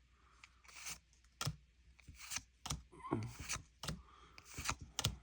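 Pokémon trading cards being slid and flicked one behind another: a run of sharp, irregular snaps with light rubbing in between.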